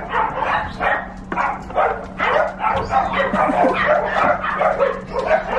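Puppies barking and yapping over and over, about two to three short yaps a second, with a steady low hum underneath.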